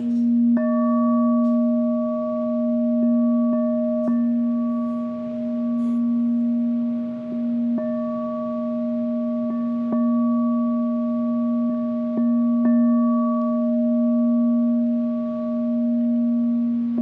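Handheld singing bowl sounding a steady low tone with several higher overtones, its volume swelling and ebbing slowly as it is played. A few light ticks come from the rim now and then.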